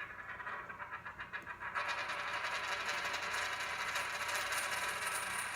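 A coin spinning on a tabletop, making a fast, continuous metallic rattle. It gets louder about two seconds in and stops suddenly near the end.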